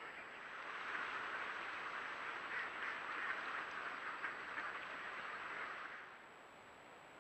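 A large flock of ducks quacking together in a dense, overlapping chorus. It cuts off about six seconds in, leaving only a faint steady hiss.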